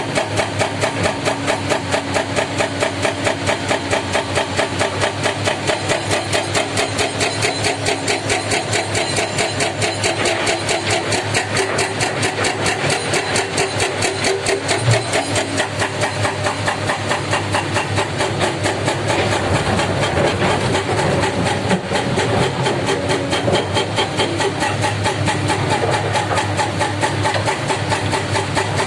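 Heavy diesel engine running with a fast, even chugging pulse, swelling a little about two-thirds through.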